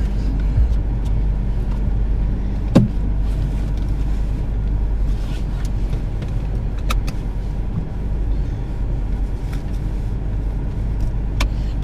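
Car engine idling, heard from inside the cabin as a steady low rumble, with a few sharp clicks about three, seven and eleven seconds in.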